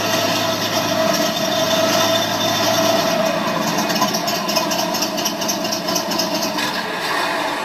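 Simulated Tiger I tank engine sound from an RC model's sound card, played through its small onboard speaker: a steady running engine noise that picks up a fast rhythmic clatter from about three seconds in.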